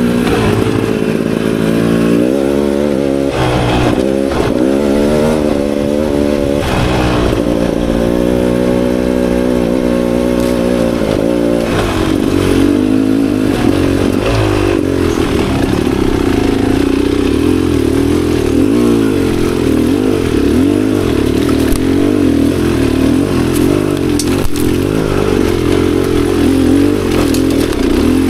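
Beta Xtrainer 300's two-stroke single-cylinder dirt bike engine running under riding load, its note rising and falling with the throttle. Occasional short knocks and clatter from the bike over rough ground.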